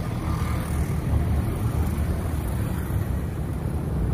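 Steady low rumble of street background noise from road traffic.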